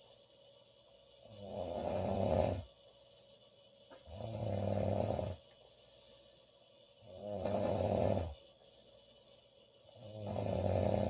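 A woman snoring loudly in a steady rhythm, one snore about every three seconds. Each snore swells for over a second and then stops sharply, with quiet gaps between.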